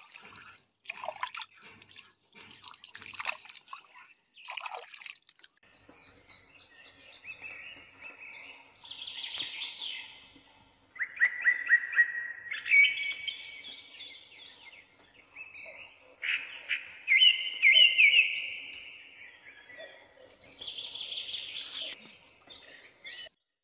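Water splashing and sloshing in a stone grinder's bowl as a hand scrubs it out, for the first five seconds or so. Then birds chirp and call in quick trills, loudest about halfway through and again about three quarters through, before the sound cuts off suddenly near the end.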